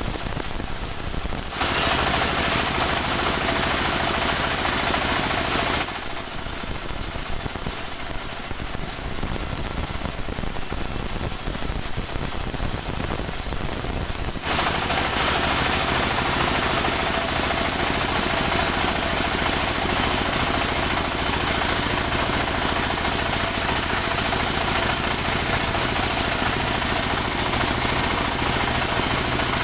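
Engine-driven band sawmill running, its blade cutting rain tree (saman) wood into planks. The sound turns louder and hissier about a second and a half in, drops back around six seconds, and comes up again around fourteen seconds.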